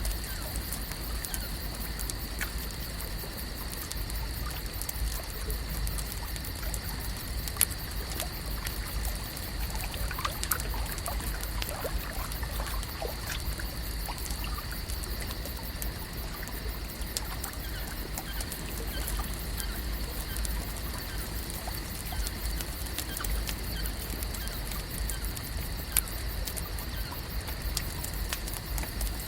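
Lake ambience: gentle water trickling and lapping with a steady low rumble and many small scattered clicks, a few sharper ticks standing out about eight, ten and twenty-six seconds in.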